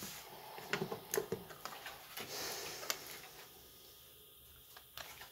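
Small plastic clicks and taps as a smartphone's frame, plastic back cover and a screwdriver are handled during reassembly, with a brief scraping rustle about two seconds in.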